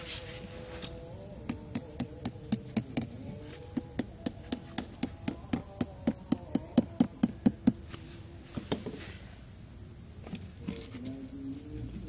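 Hammer tapping quickly and lightly, about two dozen strikes at around four a second, the last ones loudest, stopping about eight seconds in.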